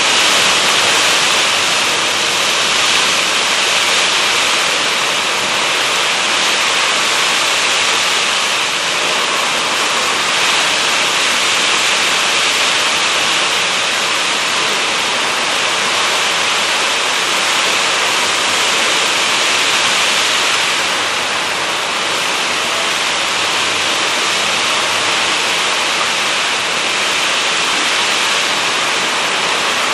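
Heavy rain pouring down in gusty wind as a cold front passes: a loud, steady rushing hiss with no break.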